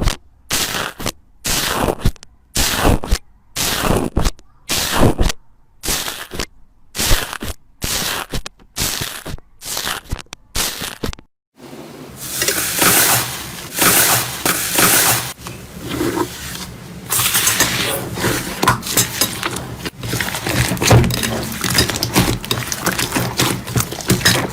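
Slime being worked by hand: first a regular squish-and-crackle about every two-thirds of a second, then, after a brief gap about eleven seconds in, a continuous dense crackling.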